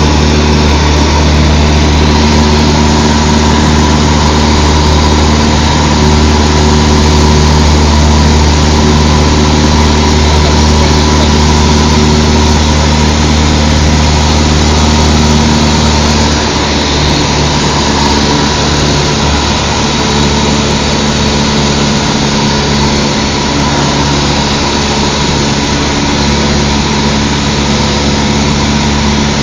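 Cessna 152's four-cylinder Lycoming engine and propeller droning steadily in flight. Its note and loudness drop a little about halfway through.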